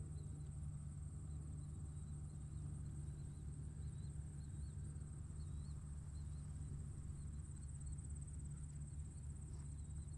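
Tractor engine running at a steady low drone, with insects trilling continuously in a high, even band and small faint chirps on top.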